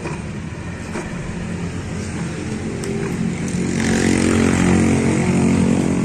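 Motorcycle engine running, growing louder as the revs rise from about three and a half seconds in, with a few faint clicks early on.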